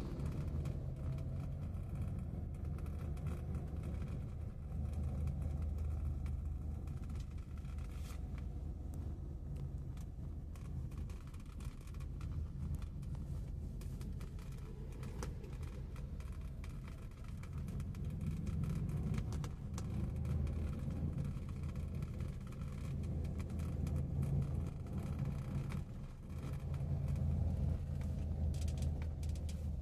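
Low rumble of a car on the move, engine and road noise, swelling and easing several times.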